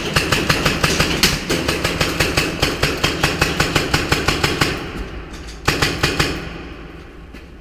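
Airsoft guns firing in rapid automatic strings of shots: one long string for about five seconds, a short burst about a second later, then the firing dies away.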